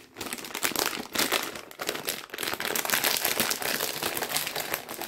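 Plastic packet of raisins crinkling and rustling as it is handled, a continuous crackle of many small clicks.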